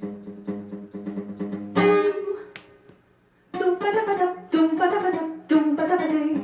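Acoustic guitar music played back through a small homemade Bluetooth speaker. Repeated plucked notes lead into a loud strummed chord about two seconds in, which rings out to a brief pause, then three strummed chords come about a second apart.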